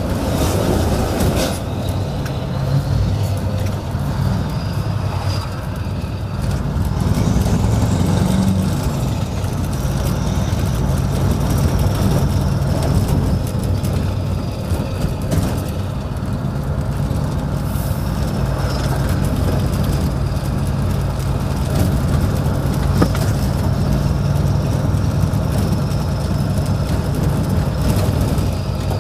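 Scania 164L 580's 16-litre V8 diesel running under light load through an open exhaust valve and pipes, a loud, deep note heard from inside the cab. The engine note rises briefly about eight seconds in, with a faint high whine above it.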